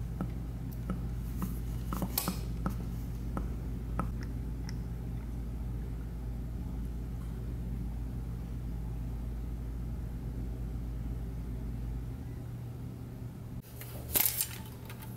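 Motor oil being poured from a plastic jug into an engine's oil filler neck: quiet pouring with scattered small ticks over a steady low hum. The hum stops after about twelve seconds, and near the end comes a short rustle of hands handling parts.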